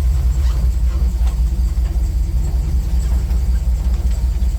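1976 Jeep CJ7's 304 V8 engine running steadily, heard from the driver's seat, a constant low sound with no change in pitch.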